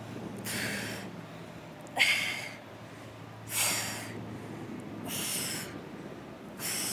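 A woman breathing out hard with each crunch, a sharp breath about every second and a half, five in all, the breathing of a tiring set of sit-up crunches.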